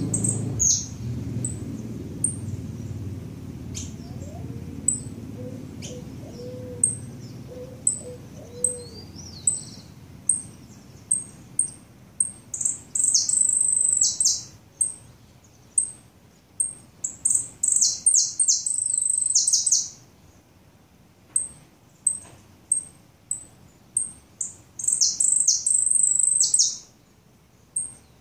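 Saffron finch singing: a string of short, high chirps about once a second, broken three times by loud bursts of rapid, high song phrases a few seconds long.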